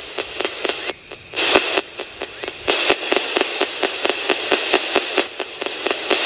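Spirit box sweeping through radio stations: hissing static chopped by rapid, evenly spaced clicks, several a second, with a few louder swells of noise.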